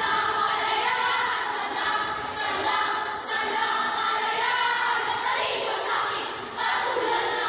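A group of schoolchildren speaking a Filipino piece in unison as a choral recitation (sabayang pagbigkas), many voices together, with a short break about six and a half seconds in.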